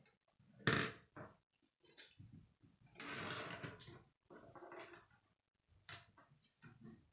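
Plastic K'nex rods and connectors clicking and clattering as they are handled and snapped together by hand, in irregular sharp snaps with a longer rattle about three seconds in.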